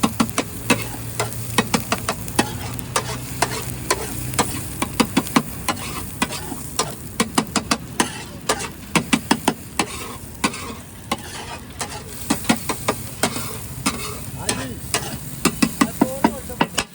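Metal spatula tapping and scraping on a hot griddle in quick runs of sharp clicks, over the steady sizzle of daal-and-egg tikkis frying in oil.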